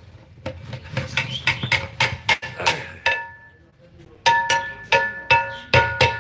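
A long metal stirring rod knocking and scraping inside a large aluminium degh of cooked rice, the pot ringing with a clear metallic tone after the harder knocks. There is a short lull about halfway through, then the knocks start again.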